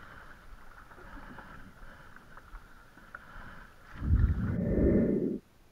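Kayak paddling: paddle strokes and water washing along the kayak's hull, with a much louder low rush starting about four seconds in and lasting over a second before cutting off suddenly.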